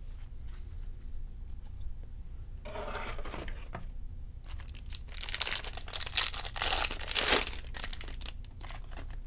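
Foil wrapper of a Topps Series 2 jumbo baseball-card pack torn open and crinkled. There is a short rustle about three seconds in, then a longer stretch of ripping and crinkling whose loudest tears come about six and seven seconds in.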